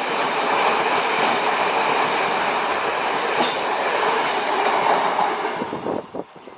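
A train running on rails with a dense, loud rumble and a few brief high squeals, dropping away sharply about six seconds in.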